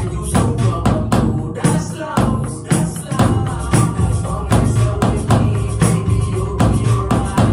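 A backing song with a steady beat, drummed along to on a Roland V-Drums electronic kit, with regular stick hits on the pads.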